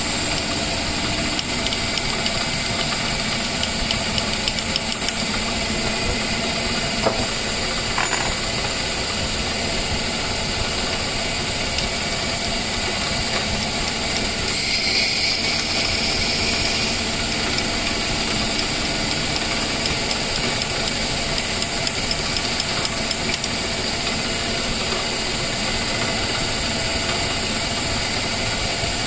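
Small lathe running steadily, spinning a carbon fiber cue shaft while a twist drill bit bores into the ferrule end to remove the old ferrule. A harsher cutting hiss rises briefly about halfway through.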